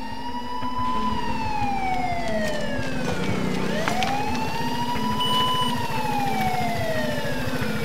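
Police siren wailing: each cycle rises over about a second to a high note and then falls more slowly, repeating about every three seconds.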